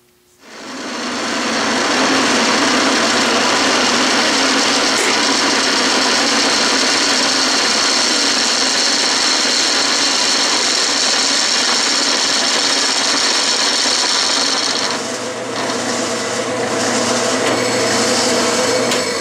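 Metal lathe drilling through an aluminium casting with a large twist drill held in the tailstock: a steady cutting and grinding noise over the hum of the running spindle. The cutting sound dips and changes about fifteen seconds in.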